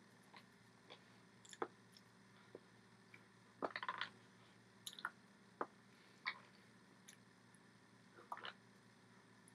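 Faint, scattered clicks and soft smacks, about a dozen spread irregularly with a small flurry about four seconds in, from a person signing in sign language, over quiet room tone.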